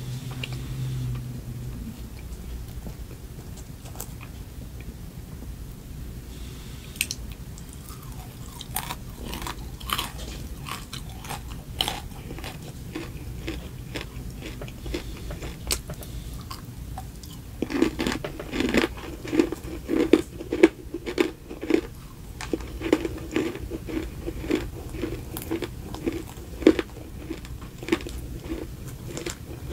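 Close-miked biting and chewing of a cupcake topped with crunchy cereal pieces and candy, with sharp crisp crunches. From about two-thirds of the way in the chewing turns steady and rhythmic, about two chews a second.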